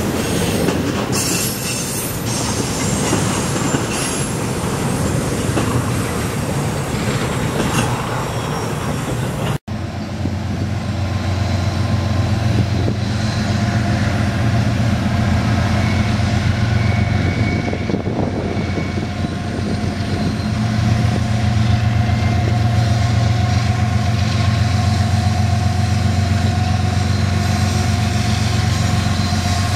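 Freight cars of a double-stack container train rolling past, with a dense clatter of wheels on rail. After a sudden cut about ten seconds in, the steady low hum of approaching diesel locomotives grows louder toward the end.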